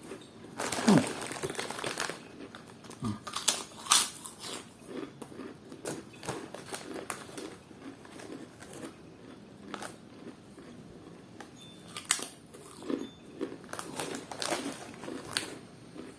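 Crunchy bacon-flavoured snack chips being bitten and chewed close to the microphone: crisp crackling crunches with chewing between them, and a dense burst of crinkling about a second in.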